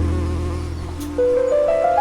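Slow ambient relaxation music: a sustained low bass tone, with a short climbing run of notes in the second half.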